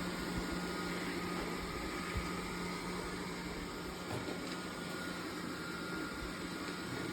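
Steady low mechanical hum with a faint high whine over an even hiss.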